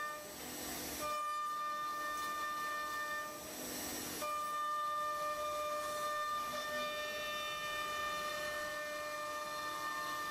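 CNC router spindle running with a steady high whine while milling wood. Twice, once near the start and again about three and a half seconds in, the whine dips briefly under a rushing cutting noise.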